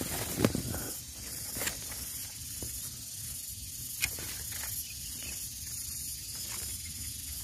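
Durian leaves and twigs rustling and brushing close against the phone, with a few sharp clicks: one about half a second in and another about four seconds in. A steady high hiss runs underneath.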